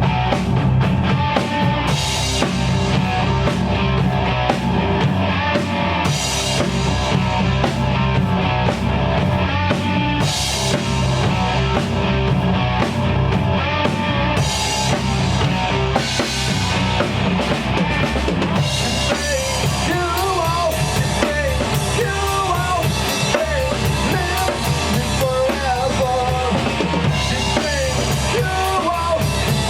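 Rock band playing an instrumental passage live: drum kit with bass drum and snare, heavy guitars and bass. About twenty seconds in, a wavering lead line comes in over the band.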